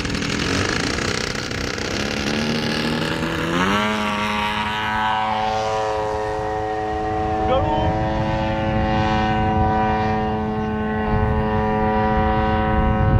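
RC tow plane's engine and propeller running at high power for an aerotow launch. The pitch climbs about three and a half seconds in as the throttle opens fully, then holds steady.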